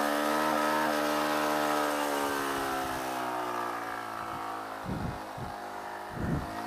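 Honda Grom's small single-cylinder motorcycle engine revving up and held at high revs. The revs then slowly fall away. Two dull thumps come near the end.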